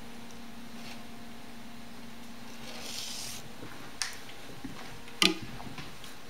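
Gerbils rustling in shredded paper bedding, with a short burst of rustling about three seconds in, then two sharp clicks about a second apart, the second the louder. A steady low hum runs underneath.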